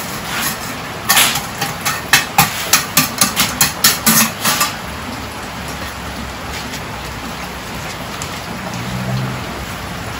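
Steady rain hiss, with a run of about ten quick, sharp scraping strokes in the first half from hand tools working sand and wet concrete.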